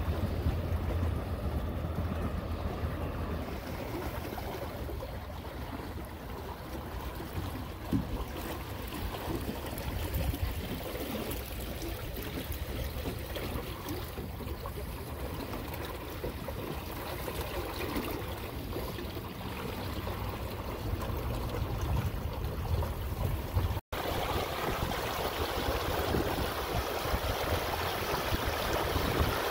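Water rushing and gurgling along the hull of a Snipe sailing dinghy under sail, with a low rumble of wind on the microphone. The sound cuts out for an instant about three-quarters of the way through, then carries on a little brighter.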